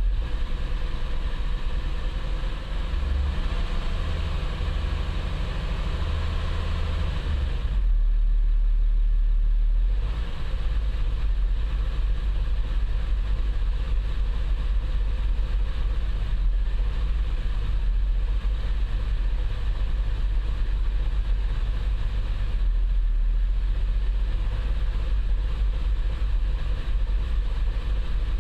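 Audi 3.0 TDI V6 diesel engine (150 kW) running steadily, with the sound changing briefly about eight seconds in. The owner suspects the sound may point to bad injectors.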